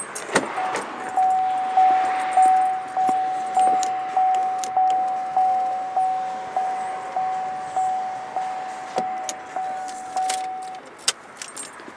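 Holden VF Commodore's electronic warning chime sounding one repeated tone just under twice a second, then stopping about eleven seconds in: the warning for lights left on. A few sharp clicks follow near the end.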